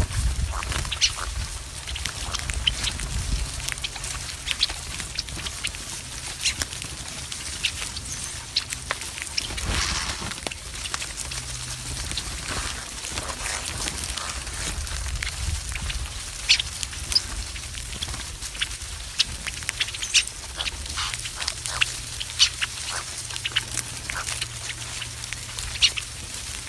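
A flock of red-winged blackbirds pecking and cracking birdseed in a stone bowl: many sharp, irregular clicks and taps, over a low steady rumble.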